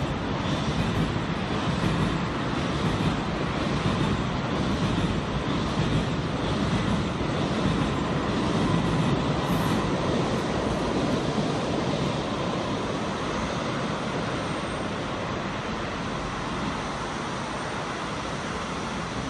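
KTX high-speed train rolling across a steel girder railway bridge, a steady rumble that swells slightly midway and eases a little near the end as the train moves off.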